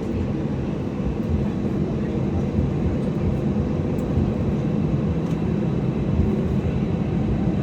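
Jet airliner noise: a steady low rumble that holds level without rising or falling.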